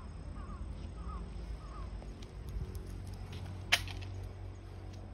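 A short, high, falling chirp from a small animal repeats roughly every half second for the first two seconds, over a steady low hum. A single sharp click comes about three-quarters of the way through.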